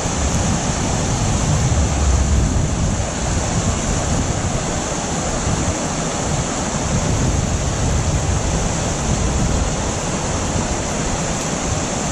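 Steady rush of flowing creek water, with wind buffeting the microphone in an uneven low rumble.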